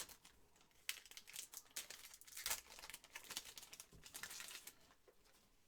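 Trading card pack wrappers being torn open and crinkled by hand, in irregular short crackling bursts that die away near the end.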